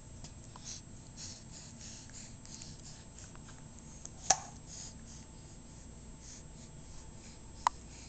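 Soft rustling and light taps as a baby bats at the hanging fabric and plastic toys of an infant play gym, with two sharp clicks, one about four seconds in and one near the end.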